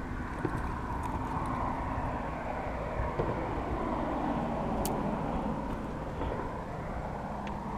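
Steady rumble of road traffic crossing the bridge overhead, swelling a little in the middle.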